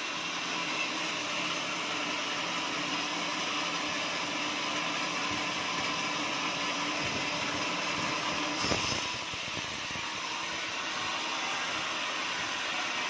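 Band sawmill running steadily as a teak timber block is fed through the band saw blade, with one brief knock about nine seconds in.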